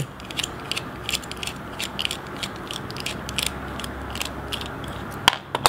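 Small screwdriver backing out a folding knife's pivot screw: a run of quick, light clicks, about five a second, with a sharper click near the end.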